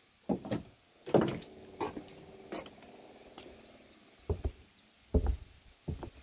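Footsteps walking down a wooden plank ramp and onto a flagstone path: single knocking steps roughly a second apart. A faint steady hum sounds under the steps from about a second in for two seconds.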